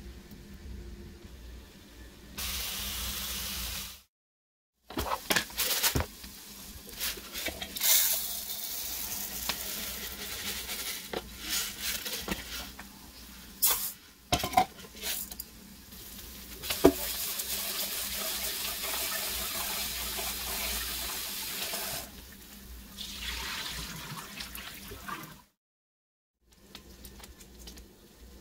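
Kitchen handling sounds: a metal pot and a plastic lid knock and clatter a number of times, then water runs steadily for about five seconds, as when a pot is filled for washing rice.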